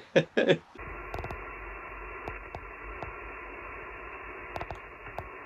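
Single-sideband shortwave receiver hiss from an ICOM IC-705's speaker: steady band noise with a few faint clicks while no station is transmitting. It follows a few brief loud sounds at the very start.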